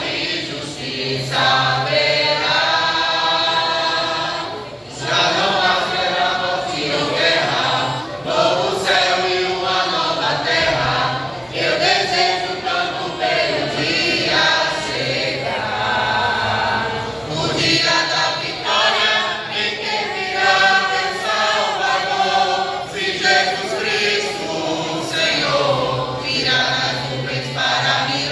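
A church vocal group singing a gospel song together as a choir, voices sustained and continuous.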